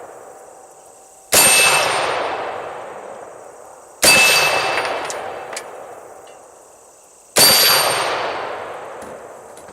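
Three rifle shots about three seconds apart. Each is followed by the AR500 steel spinner target plate ringing with a clear metallic tone that fades over about two seconds, the audible sign of a hit on the steel.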